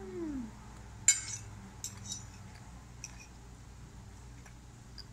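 A metal fork clinks against a ceramic plate: one sharp clink about a second in, then a few lighter taps. At the very start, a cat's meow falls in pitch and fades out.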